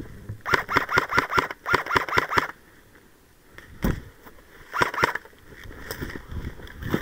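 Airsoft rifle firing two quick bursts of shots, each under a second long, followed by a single shot and then a close pair of shots.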